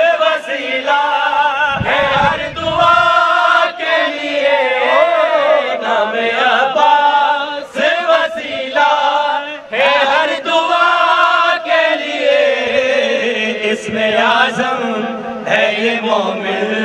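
Men chanting an Urdu devotional manqabat into microphones, the lead voice holding long, wavering notes with brief breaks for breath.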